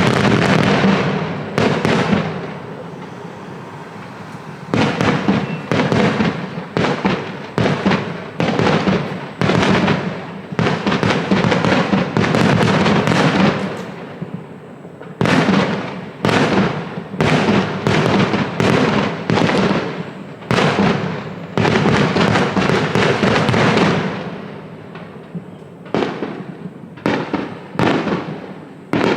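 Fireworks display: aerial shells bursting in a dense barrage, with many loud bangs in quick succession, each dying away briefly before the next.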